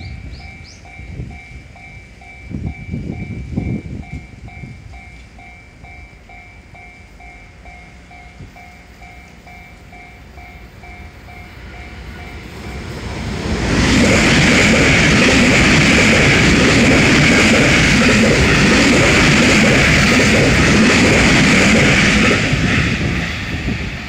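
Japanese level-crossing warning bell ringing its repeating 'kan-kan' ding. About 14 seconds in, a train passes over the crossing, and its loud, steady running noise covers the bell for about nine seconds before easing off near the end.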